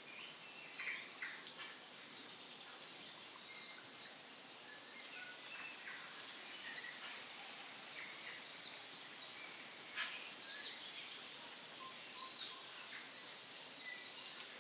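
Faint outdoor ambience: a steady hiss with scattered short bird chirps, and a single sharp click about ten seconds in.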